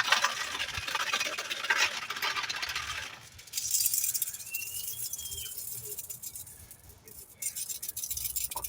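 Steel bicycle bearing balls rattling and clinking in a metal pan as they are swished in gasoline to wash out caked sand and gravel. The rattling runs for about three seconds, then comes back in shorter spells.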